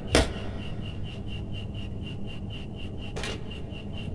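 Hands handling a red electrical wire on a workbench, with a sharp click just after the start and another about three seconds in. Under it runs a steady rapid ticking, about six or seven ticks a second, and a low hum.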